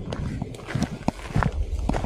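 Footsteps of a person walking, a few steps in a row.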